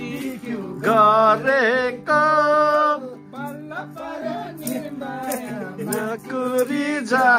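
Nepali dohori-style singing: a voice sings phrases of held, wavering notes over a steady plucked-string accompaniment.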